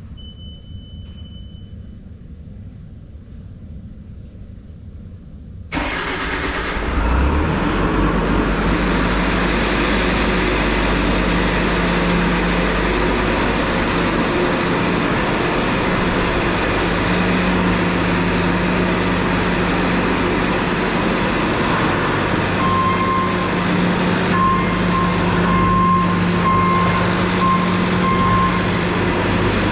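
Truck engine starting about six seconds in, then running steadily. Near the end a vehicle chime beeps repeatedly.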